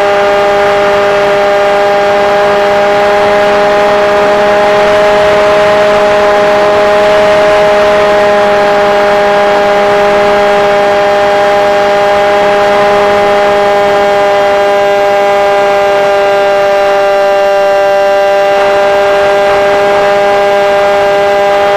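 Motor and propeller of a Multiplex Shark RC airplane whining steadily at almost constant pitch under power in flight, picked up close by a camera mounted on the plane, over a steady hiss.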